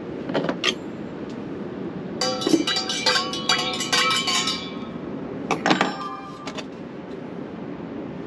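A metal spoon stirring coffee in a stainless-steel camp mug, clinking rapidly against the mug's sides for about two seconds, then a shorter run of clinks a second later.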